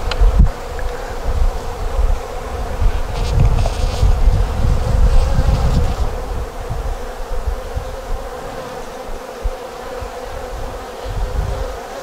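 Honey bees humming steadily over an opened hive, a dense colony hum with no break.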